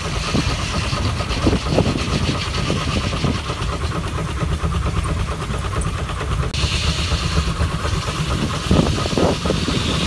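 Steam traction engine running steadily while belted to a sawmill. A higher hiss grows louder about six and a half seconds in.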